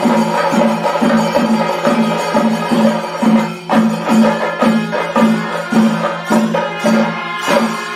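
Traditional percussion music with a steady beat a little over two strokes a second over a pulsing low drone, with sharp metallic or wooden strokes on top.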